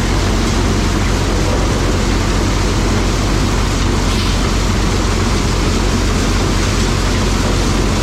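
White 1210 corn sheller running steadily while shelling cob corn: a loud, continuous mechanical din over a constant low engine hum.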